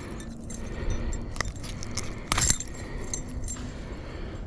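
Light metallic jingling and clinking, with two sharp clicks about a second and a half and two and a half seconds in: the blades and hook of a spinnerbait rattling as a freshly caught bass is unhooked.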